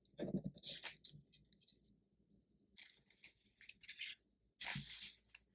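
Small handling noises of card-making materials on a table: scattered clicks and short rustles, with a longer rustle or scrape near the end.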